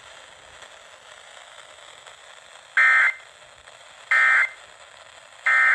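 EAS end-of-message (EOM) data bursts from NOAA Weather Radio: three short, loud, buzzy digital tones about a second and a half apart, signalling that the tornado warning broadcast has ended. A faint steady radio hiss lies under them, and the first burst comes a little under three seconds in.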